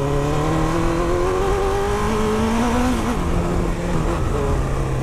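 Honda CB1000R's inline-four engine pulling hard under throttle, its pitch rising steadily, then dropping about three seconds in and carrying on at a lower, steadier note. Wind rumble on the microphone runs underneath.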